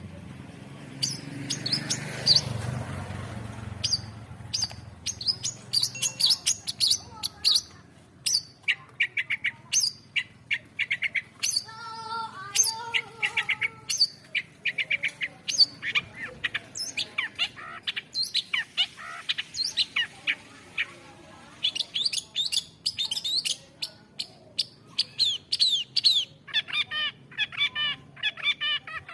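Long-tailed shrike singing a fast, varied song of short sharp chirps, rapid trills and quick runs of notes, with a lower, fuller call about twelve seconds in.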